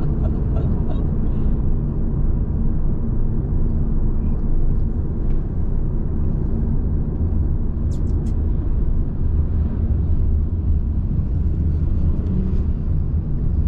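An engine running steadily, a constant low rumble without let-up, with a couple of brief clicks about eight seconds in.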